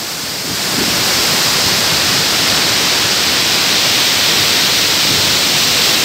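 Salto Cavalcanti waterfall and the rapids below it on the Rio das Cinzas: a steady, dense rush of falling water that grows a little louder about a second in.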